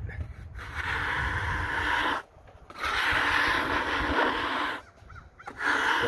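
Wide steel putty knife scraped along the freshly sawn face of a box elder slab: long scraping strokes of about two seconds each, two in full and a third starting near the end.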